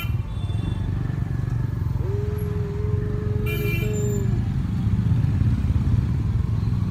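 Street traffic: the steady rumble of passing motorcycles and cars. About two seconds in, a steady tone sounds for roughly two seconds and then stops.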